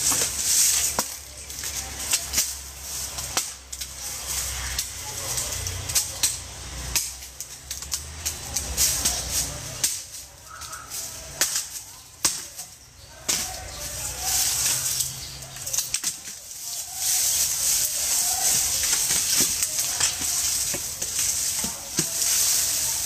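Dry leaves and brush rustling and crackling as dead branches and roots are pulled and dragged through them, with scattered snaps and knocks.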